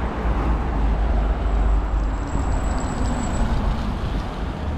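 City road traffic: a steady rumble of vehicles on a street, with a faint high whine for about two seconds mid-way.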